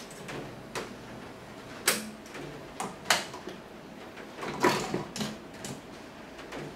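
Electric fan parts being handled and fitted together during reassembly: a run of sharp clicks and knocks, the loudest about two seconds in.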